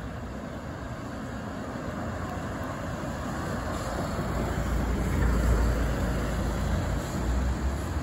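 Outdoor background noise: a steady rushing with a low rumble that swells about five seconds in and then eases.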